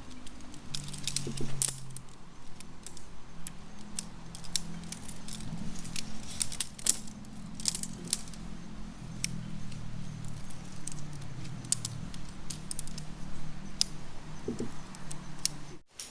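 Camping gear being handled, a series of small sharp metallic clinks and rattles at uneven intervals over a low steady hum.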